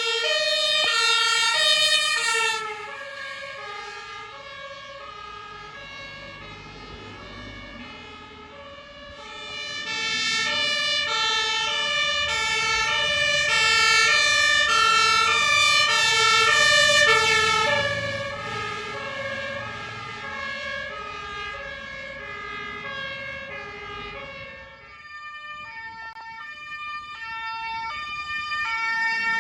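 German two-tone emergency sirens (Martinshorn) on fire engines and a police car, several alternating at once at different pitches. Loud at the start, dropping away, then loud again for about eight seconds in the middle as vehicles pass close, with engine rumble beneath.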